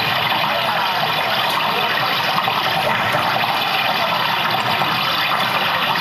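A person gurgling water in the throat, close to a microphone: a loud, continuous, dense gurgle with no break.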